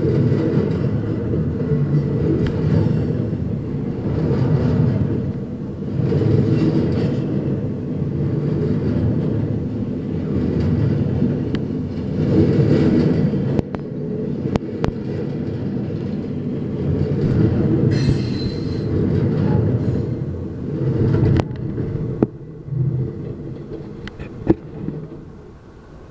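Double-stack intermodal well cars of a Norfolk Southern freight train rolling past: a loud, uneven rumble of steel wheels on rail with clacks at the joints, and a brief high screech about 18 seconds in. The rumble drops away as the last car passes about 22 seconds in, leaving a few sharp clanks.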